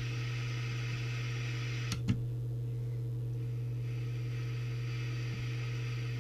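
A steady low electrical hum with a faint hiss above it, and a single small click about two seconds in.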